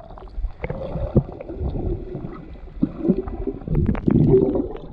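Muffled underwater sound picked up by a submerged camera: water churning and gurgling around it, with a few dull knocks, and a louder stretch of churning near the end.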